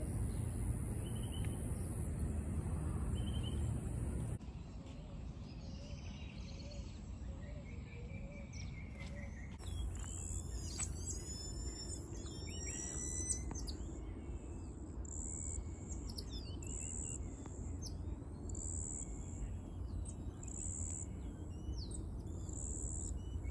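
Birds chirping and calling: a burst of quick, high, up-and-down chirps about ten seconds in, then a short high note repeating about every two seconds, over a steady low background rumble.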